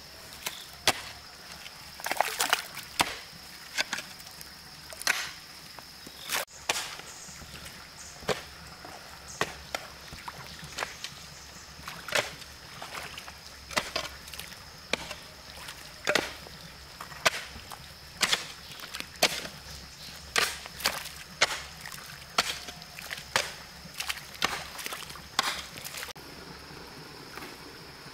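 A hoe chopping into wet soil and mud at the edge of a pond, a sharp strike about once a second, with water sloshing around the boots of the person standing in the shallows. The strikes stop shortly before the end.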